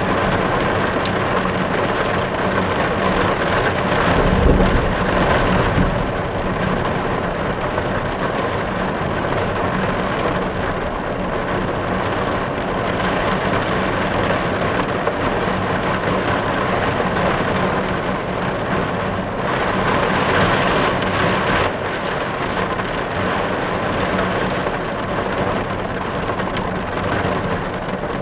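Steady rain drumming on a car's roof and windows, heard from inside the car, with a brief low rumble swelling about four seconds in.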